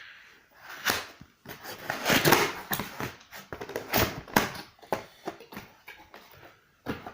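Cardboard box and packaging being handled and unpacked: irregular rustling, scraping and small knocks.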